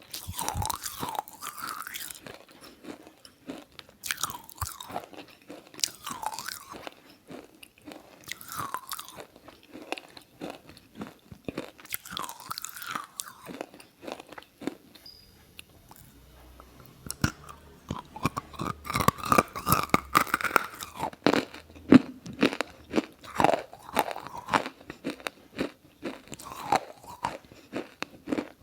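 Close-miked biting and crunchy chewing: a steady run of irregular crunches and mouth clicks that grows denser and louder past the middle.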